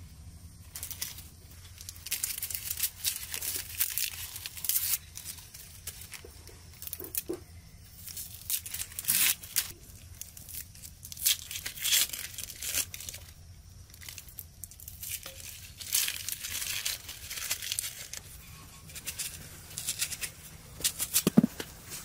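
Onions' dry outer skins being peeled and torn off by hand with a kitchen knife, in a series of short, irregular rips.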